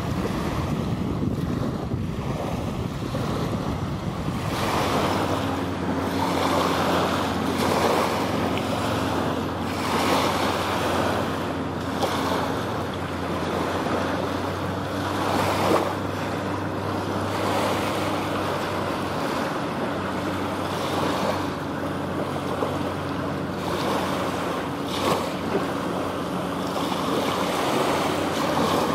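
Choppy lake water splashing in washes every couple of seconds, with wind on the microphone. From about five seconds in, a motorboat engine adds a steady low drone underneath.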